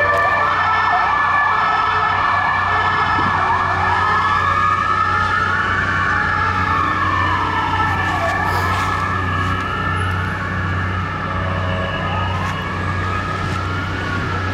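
An emergency vehicle siren, a rapid warble for the first few seconds that changes to slow rising and falling wails about four seconds in, over a steady low traffic rumble.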